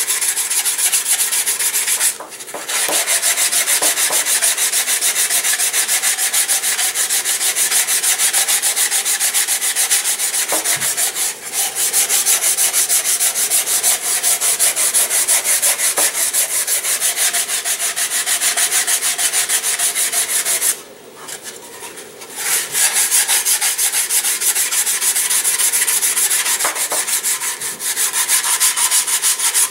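Hand sanding of a wooden model-glider fuselage with sandpaper on a wooden sanding block, in quick, steady back-and-forth strokes. The strokes stop briefly about two seconds in and again for a second or two about two-thirds of the way through.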